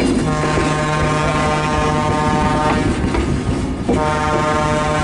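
Train whistle sounding two long blasts, the first lasting about two and a half seconds and the second starting about a second later, over the steady rumble and clatter of the rolling train.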